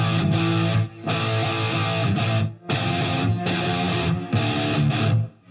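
Rock intro music with strummed electric guitar, breaking off briefly about a second in and again about halfway through.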